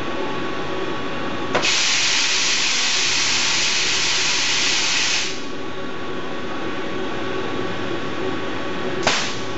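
Compressed air hissing in a robot-tended CNC mill cell: a strong blast starts with a click about one and a half seconds in and lasts nearly four seconds, then a short sharp burst of air comes near the end. A steady machinery hum runs underneath.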